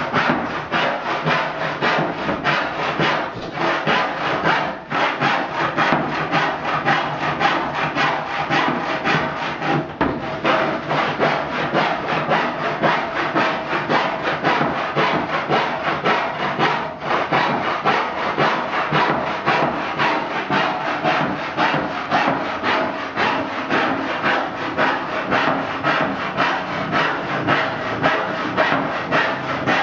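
Handsaw cutting through a thin wooden board in even, continuous back-and-forth strokes.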